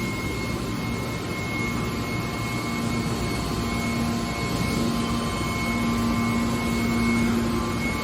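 Hydraulic metal baler running: a steady mechanical hum from its hydraulic power unit, with a tone that grows stronger about three seconds in.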